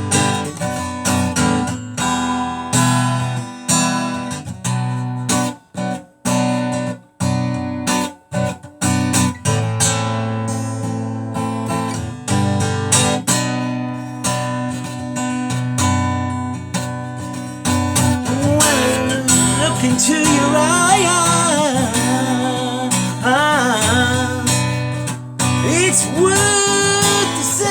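Music: a song with strummed and picked acoustic guitar. A voice sings a wavering melody in the second half, with a few short breaks in the sound early on.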